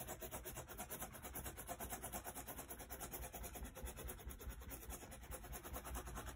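Faint, rapid scratchy rubbing of a small rounded hand tool burnished hard over the back of tracing paper on a linoleum block, pressing a pencil drawing onto the lino in quick short strokes.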